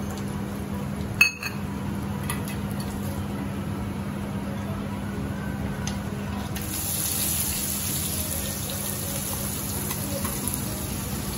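Hot oil sizzling in an iron kadhai with dried red chillies frying for a tadka, with one sharp knock about a second in; the sizzle grows louder and brighter a little past halfway, and sliced onions go into the oil near the end.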